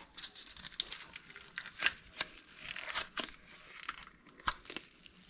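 Gloved hands pulling a lump of plumber's putty out of its container: irregular crinkling and rustling with scattered small clicks.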